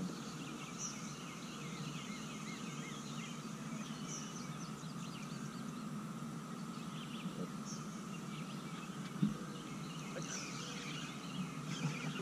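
Birds chirping and calling from the trees around the water over a steady low hum, with a single sharp knock about nine seconds in.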